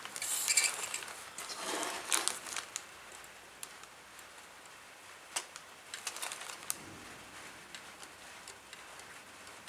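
Plastic model kit parts being handled and set down on a table: crinkling rustles in the first few seconds, then scattered light plastic clicks.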